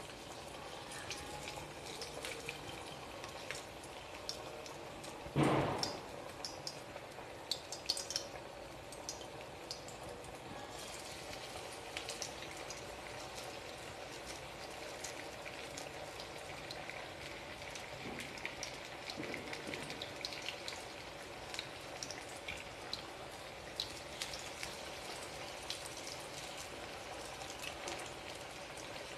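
Banana blossom vadai deep-frying in hot oil in a kadai: a steady sizzle and crackle with many small pops. There is a brief louder burst about five seconds in.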